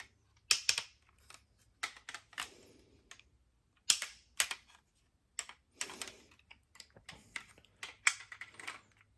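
Hard plastic parts of a Megazord action figure clicking and rattling as they are handled and fitted together: a run of irregular sharp clicks, the loudest about four seconds in.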